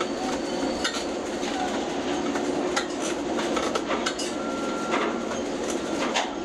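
Container crane machinery heard from inside the operator's cab: a steady hum with scattered metallic clicks and clanks, and a short higher whine about four seconds in.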